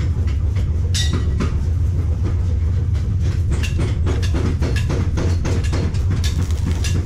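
Steady low hum of an arc-welding machine, with a couple of metal knocks about a second in. The dense crackle of a stick-welding arc follows from about halfway, as the steel frame is welded to the wheelbarrow tray.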